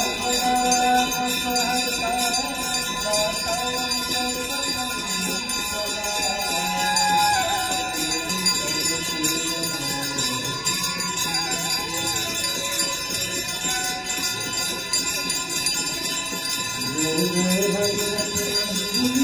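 Hand bells ringing continuously during a Ganga aarti, with a devotional song sung over them; the sung melody is strongest in the first half and returns near the end.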